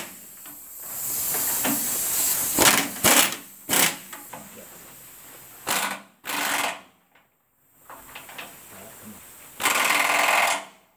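Pneumatic wrench running in several short bursts on the rear leaf-spring mounting bolts, the longest burst near the end.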